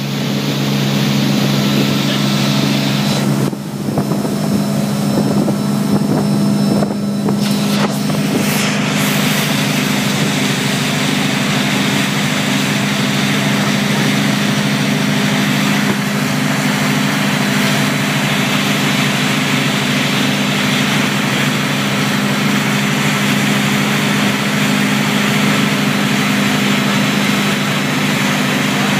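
Tow boat's engine running steadily, a low even drone, over the rushing hiss of the churning wake.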